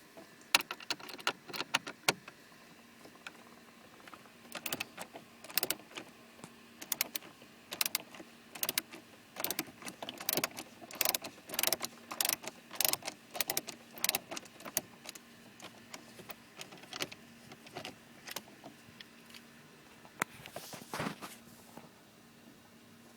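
Screwdriver working the screws out of a car's dashboard trim panel: a long run of irregular clicks and small knocks, with a short scrape near the end.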